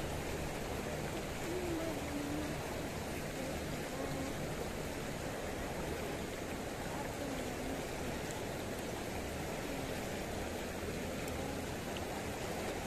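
Shallow river water rushing steadily over a rocky bed.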